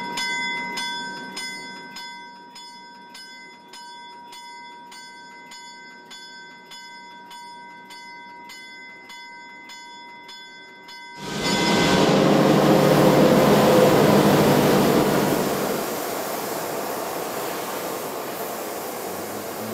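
Diesel locomotive bell ringing, about three strokes a second, fading to a softer steady ring. About 11 seconds in it cuts off suddenly, replaced by a loud rushing rumble that swells, then settles to a steadier, lower level.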